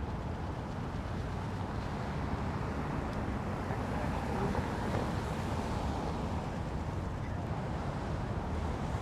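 Toyota Highlander SUV driving slowly past: a steady low rumble of engine and tyre noise that swells a little about halfway through as the vehicle comes closest.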